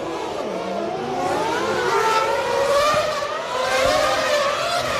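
Formula One car engines revving, several at once, their pitches rising and falling over one another and growing louder about a second in.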